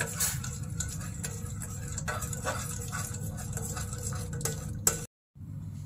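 A metal spoon stirring thick batter in a hammered stainless-steel bowl, with irregular clinks and scrapes against the bowl's sides. The sound breaks off suddenly near the end.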